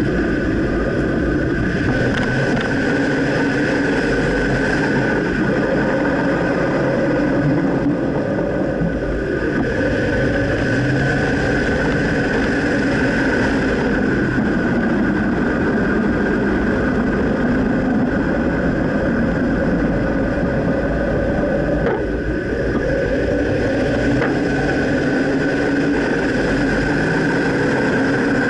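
2009 Dodge Ram pickup truck driving: steady engine and road noise, with the engine pitch slowly rising and falling as the speed changes.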